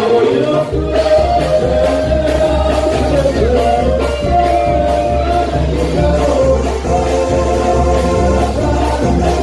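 A song playing: a voice singing over a band with a steady pulsing bass beat.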